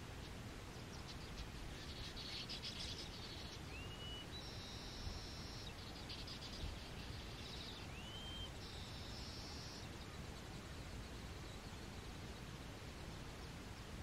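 Male baya weaver singing at its nest: high, buzzy chattering trills broken by two short rising whistles about four seconds apart, dying away about ten seconds in, over a steady hiss.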